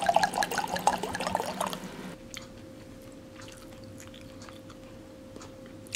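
Red wine poured from a bottle into a wine glass, splashing and gurgling, stopping about two seconds in. After that, only faint small clicks.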